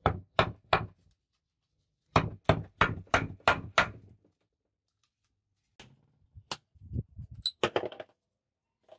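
Hammer blows on a metal rod, chipping melted metal crust off a rusty truck air compressor. Three blows, a pause, a quick run of about six, then lighter, scattered knocks.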